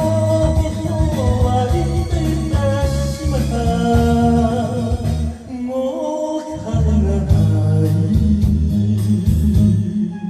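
An upbeat Japanese pop song with bass guitar, guitar and drums, and a voice singing the long held melody lines over them.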